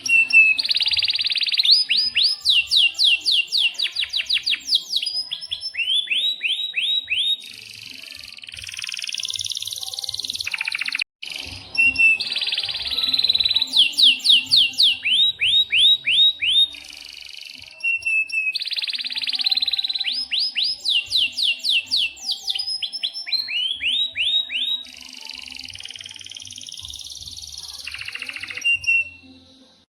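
Domestic canary singing a long song: fast runs of falling whistled notes alternate with held, buzzing rolls, the phrases repeating over and over, with a very brief break about eleven seconds in.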